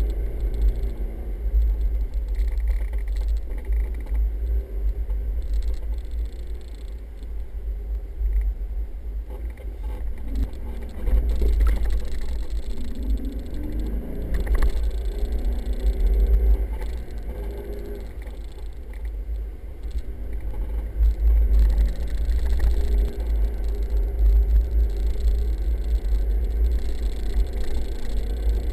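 4x4 driving over soft sand dunes, heard from inside the cabin: a heavy, continuous low rumble of engine and tyres, with the engine note rising and falling as the driver works the throttle over the dunes.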